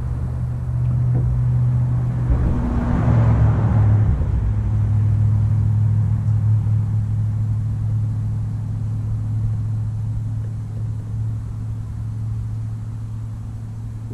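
Small boat's motor running at a steady drone, with a brief swell of rushing noise around three seconds in.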